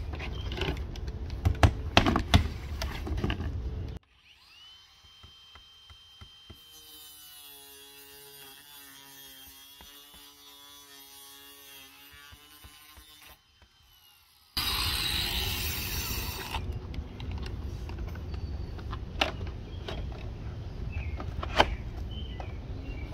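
Handheld power saw cutting through a vinyl siding panel in one loud, hissing burst of about two seconds, midway through. Before and after it come scattered sharp hammer taps as siding is nailed to a wall. Early on there is a long, much quieter stretch with a few steady sustained tones.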